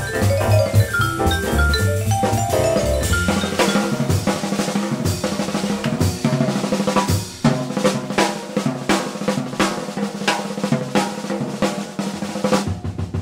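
Jazz drum kit solo on snare, bass drum, toms and cymbals. For the first few seconds the band's pitched instruments are still sounding, then the drums carry on alone.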